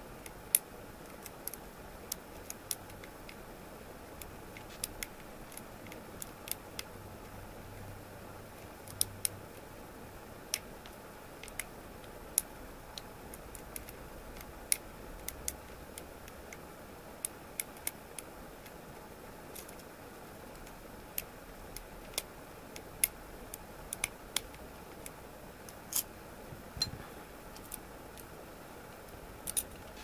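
Small, sharp metallic clicks at irregular intervals, one or two a second, as a hook pick and tension wrench single-pin pick a Union six-pin oval cylinder with spool pins, over a faint steady hiss.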